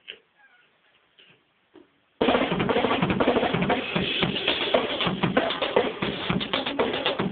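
A few faint taps, then a drum kit starts abruptly about two seconds in and plays loudly and busily, with dense strikes on bass drum and snare.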